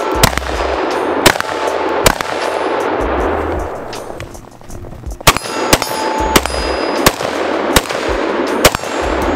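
AR-15 pistol firing single shots: three about a second apart, a pause of some three seconds, then a quicker string of about six, each with a long echo. Hit steel targets clang between the shots.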